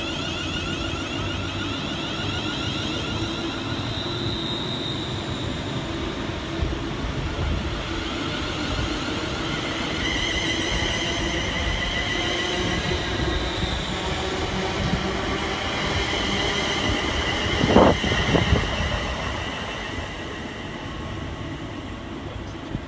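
Class 350 Desiro electric multiple unit pulling out, its traction motors whining in high tones that change pitch about ten seconds in over a steady rumble of wheels. A loud thump comes near the end, and then the sound fades as the train moves away.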